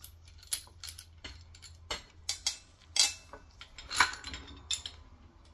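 Light metallic clinks and taps of tools and hardware being handled at a car's control arm, about a dozen short, irregular clicks, with a faint low hum underneath.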